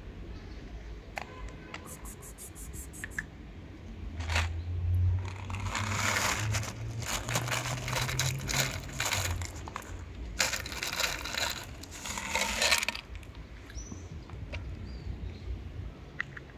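Dry cat food rattling as it is shaken out of a plastic bottle onto gravel, in two long bursts: the first starts about a third of the way in, the second is shorter and follows a brief pause.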